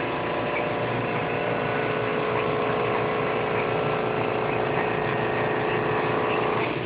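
SYY-125 sausage linking machine running, its belt drive pulling sausage through: a steady motor hum with several steady tones, which falls away shortly before the end.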